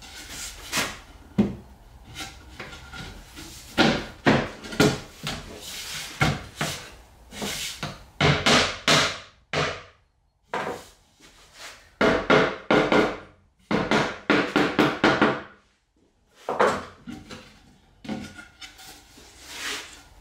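A plywood panel being fitted onto a wooden cabinet frame: bursts of rapid wooden knocks and clatters, with a couple of short pauses.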